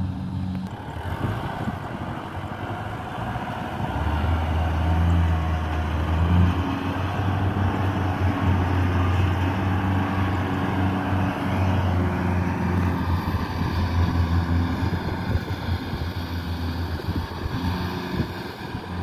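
Farm machinery engine running steadily with a low hum in a rice field at harvest. The hum grows louder about four seconds in and holds.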